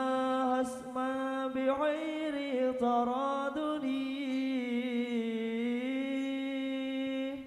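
A man sings an Islamic sholawat line, holding one long note with wavering ornaments and no instruments, until it stops at the end.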